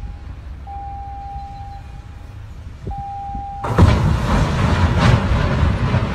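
A ship's horn gives two more blasts, each about a second long on one steady note. Then about three and a half seconds in, a sudden loud noise starts and keeps going as the bow of one general cargo ship strikes and presses into the side of another.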